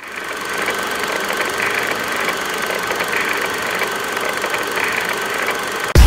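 Steady mechanical running noise with a faint high whine, fading in at the start and holding steady; it cuts off abruptly near the end as loud music with heavy bass comes in.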